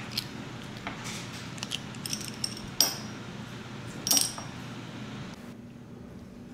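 Small metal clicks and clinks as a USB DAC is taken apart by hand, its cap, casing and circuit board handled: scattered sharp ticks, a few with a short metallic ring, the loudest about three and four seconds in.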